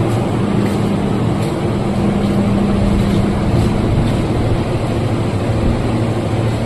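A machine running steadily: a low hum over a broad rushing noise, the hum fading and returning a few times.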